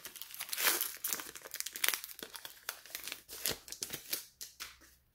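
Trading-card pack wrapper being torn open and crinkled by hand, a dense run of crackling and tearing that stops just before the end as the cards come out.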